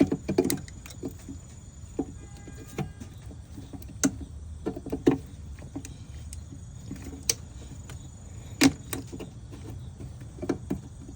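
Irregular clicks and knocks of plastic wiring-harness connectors being handled and fitted onto a car's engine control module (ECM), over a steady low hum. The sharpest knock comes about three-quarters of the way through.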